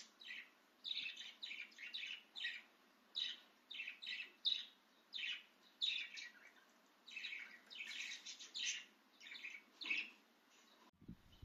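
Budgerigar chirping: a string of short, high chirps with brief gaps between them.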